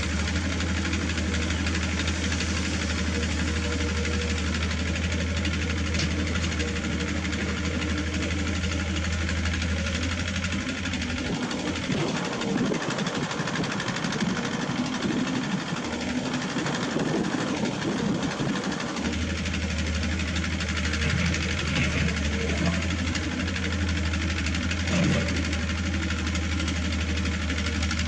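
Diesel engine of heavy earthmoving machinery running steadily. Its low hum drops away for several seconds in the middle, then comes back.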